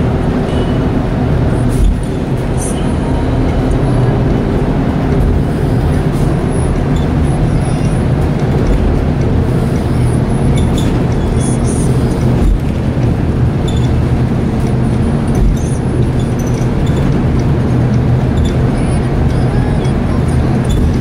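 Steady engine and tyre noise heard from inside a moving vehicle on the road: a continuous low rumbling hum.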